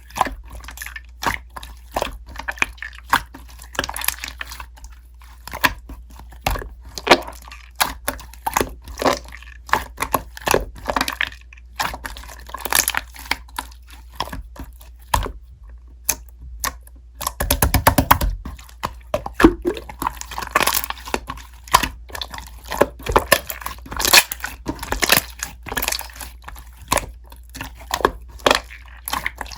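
Slime being pressed and poked by hand, giving irregular sharp crackling and popping clicks, with a quick run of many pops a little past the middle.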